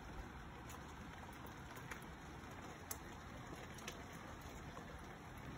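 Faint steady rain, with a few light ticks about a second apart.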